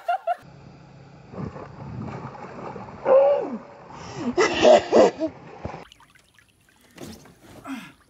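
Pool water splashing as someone in an inner tube tips over backwards, mixed with people shouting and laughing, loudest about four to five seconds in.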